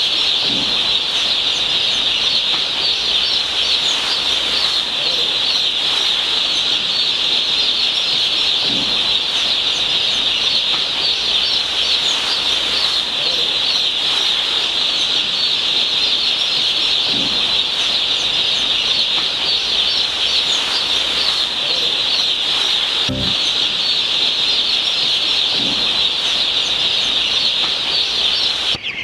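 A dense, steady chorus of many broiler chicks peeping together, a continuous high chirping from a large flock.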